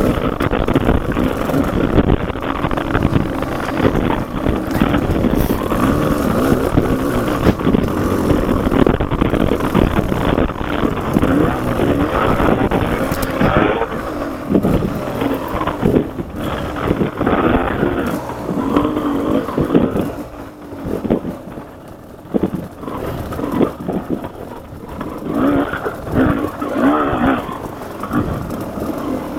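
Off-road vehicle engine running under load along a trail, rising and falling with the throttle. It eases off about two-thirds of the way through and picks up again near the end.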